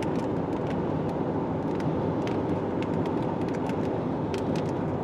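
Steady road and engine noise inside a car being driven fast, with scattered light ticks over it.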